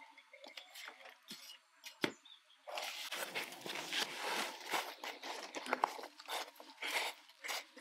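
Gloved hands pressing and working potting soil into a plastic nursery pot around a plant: a dense run of soft crunching and rustling scrapes, after a single sharp tap about two seconds in.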